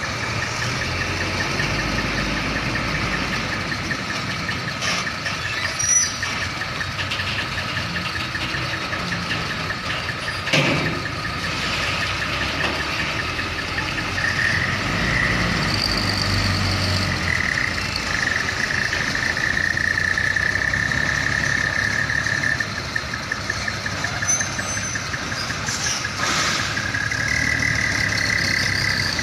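Heavy diesel truck engines running at idle, with a steady high whine on top and a sharp clunk about ten seconds in. The engine sound grows louder near the end as a container tractor-trailer drives past.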